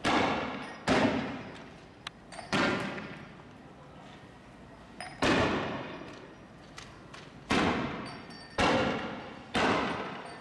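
Gunfire: seven single shots at irregular intervals, each a sharp crack followed by a long echo.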